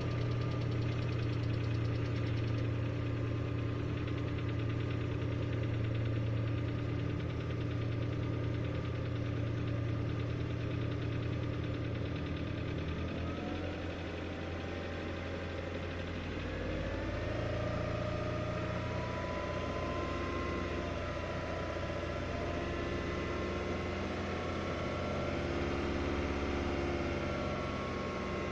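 VAZ-21126 1.6-litre 16-valve petrol engine idling just after starting, with a knock or tick whose nature the owner is unsure of. The running note shifts about halfway through, then holds steady.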